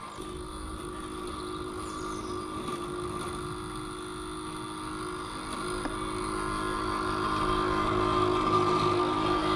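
Bosch Indego S+ 350 robot lawn mower running, its electric blade and drive motors giving a steady hum with a higher whine over a low rumble, growing louder in the last few seconds.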